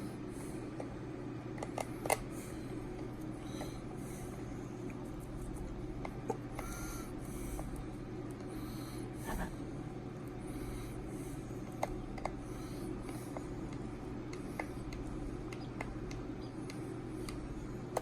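A steady low hum with scattered small clicks and taps of a hex driver and screws being worked into an RC car's plastic and metal parts; the sharpest click comes about two seconds in.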